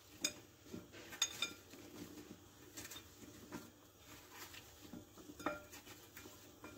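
Raw potato slices being tossed by hand with spices in a ceramic bowl: faint rustling with a few scattered clicks of slices knocking against the bowl.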